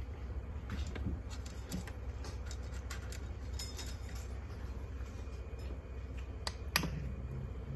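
Light clicks and clinks of feeding dishes as cats eat, over a steady low hum, with one sharper click near the end.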